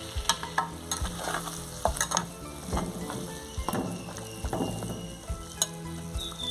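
Pork pieces sizzling as they fry and brown in their own rendered fat in a glazed clay cazuela, stirred with a slotted metal spatula that scrapes and taps against the pot again and again.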